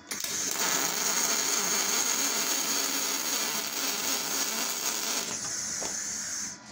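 MIG welding arc from a spool gun laying a bead on aluminum: a steady hiss that strikes up suddenly and cuts off shortly before the end.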